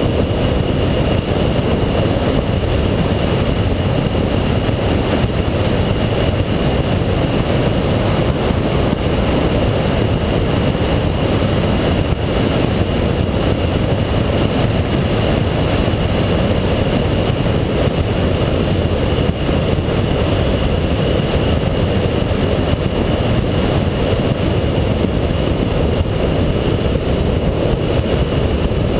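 A 2007 Ford Shelby GT500 driving at an even pace: a steady, loud rush of wind and road noise with the engine held at a constant speed, with no shifts or revving.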